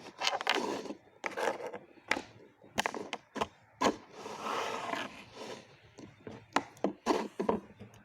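Irregular scraping and rubbing sounds, with sharp clicks between them, as of objects being handled and moved about.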